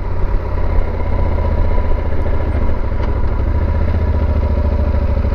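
Motorcycle engine, a Yamaha Super Ténéré's parallel twin, running steadily at low speed.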